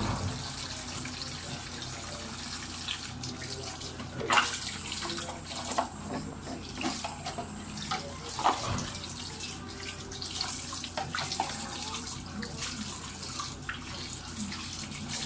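Water running steadily from a wall tap and splashing into the sink, with a few knocks as plastic fan parts are handled under it.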